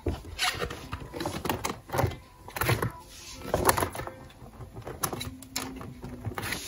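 Clear plastic binder pocket pages rustling and crinkling as they are turned and handled, with irregular soft taps and clicks.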